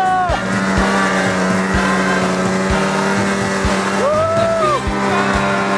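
Snowmobile engine running steadily at speed, with irregular low thumps underneath. About four seconds in, a short tone rises and falls over the engine.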